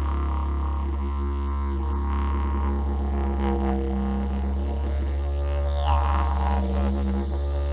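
Background music: a didgeridoo playing a continuous low drone with shifting overtones.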